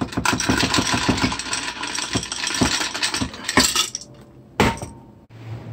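Ice cubes rattling and clinking against glass as a stirred bourbon-and-amaretto cocktail is poured from the mixing container into a glass of ice. About four and a half seconds in comes a single sharp knock.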